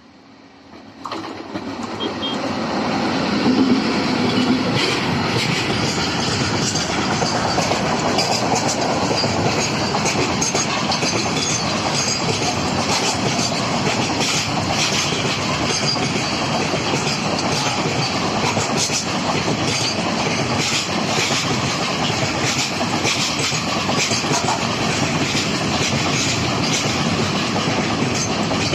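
A train passing close by at speed: the noise swells quickly about a second in, then a steady rush of wheels on rail with rapid clickety-clack over the rail joints and some wheel squeal.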